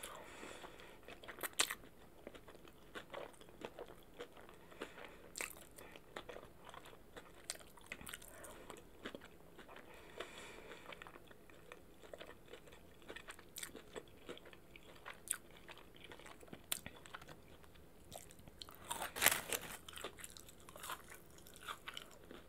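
Close-miked mouth sounds of a person chewing and biting crunchy fried food, Wingstop boneless chicken wings and fries, as scattered faint crunches and smacks. A louder cluster of bites comes near the end.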